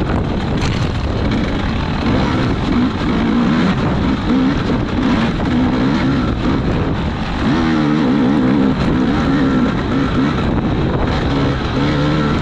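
Small off-road race engine running under load, its pitch rising and falling as the throttle is worked, with wind buffeting the microphone.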